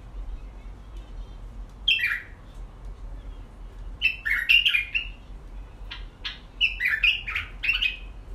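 Thin clear plastic cups squeaking and crackling as they are pressed into one another to build a stack, in three short bursts about two, four and seven seconds in.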